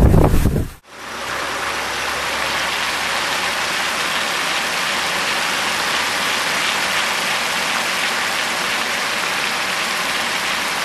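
Heavy rain falling as a steady, even hiss. It starts sharply about a second in, after a brief burst of low wind rumble.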